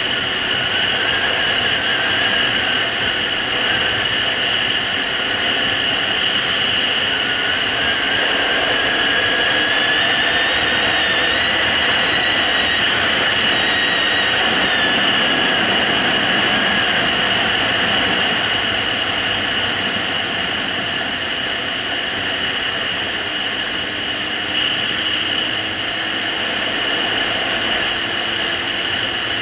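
Suzuki GSR750's inline-four engine running on the move under steady wind roar. Its pitch rises for a few seconds around the middle, then falls back.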